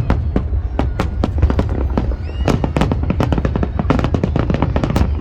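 Fireworks display: a rapid, irregular string of bangs and crackles, several a second, over a continuous low rumble.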